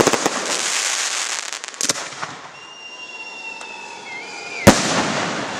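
Fireworks display: an aerial shell bursts at the start and is followed by a crackling hiss of stars, then a few smaller pops about two seconds in. A single sharp bang near the end is the loudest burst.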